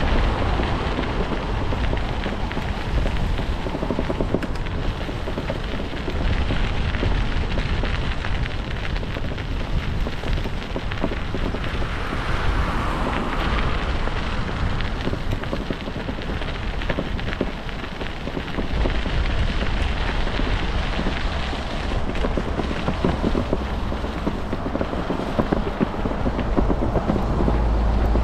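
Steady rush and low rumble of wind on a bicycle-mounted camera's microphone while riding, mixed with tyre noise from the road surface.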